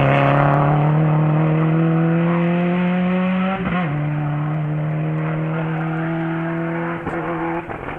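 Rally car engine at high revs, its pitch climbing steadily, with a short break for a gear change about three and a half seconds in. It then holds high revs and drops away near the end.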